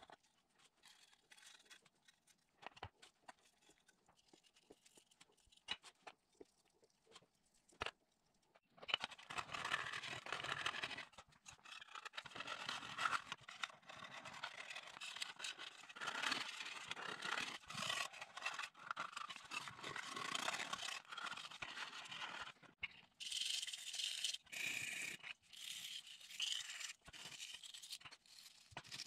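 A few light clicks and taps, then from about nine seconds in a metal blade scraping old blue paint and rust off the flashlight's tin body in quick, repeated strokes.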